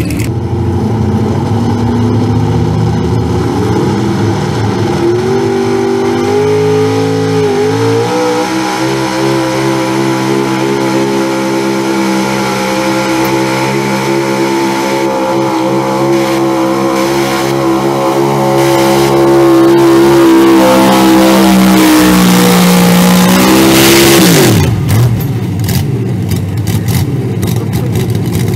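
Pickup truck engine under full load pulling a weight-transfer sled. The revs climb over the first several seconds, hold high and steady through most of the pull and grow louder, then drop sharply about 24 seconds in as the throttle is let off.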